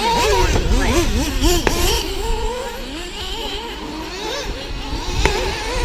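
Several radio-controlled model racing cars running round the track at once, their motors rising and falling in pitch as they accelerate and brake. Two sharp clicks stand out, about a second and a half in and near the end.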